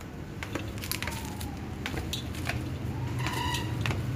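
Footsteps and small clicks of someone walking down stairs, over a steady low rumble of background noise. A faint tone glides down about a second in and rises again near three seconds.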